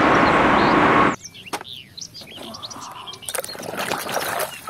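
Twin-engine jet airliner climbing out after takeoff, a loud steady roar with a whine, cut off suddenly about a second in. Then birds chirp, and from about three seconds in water sloshes and splashes as a hand stirs a basin of foamy water.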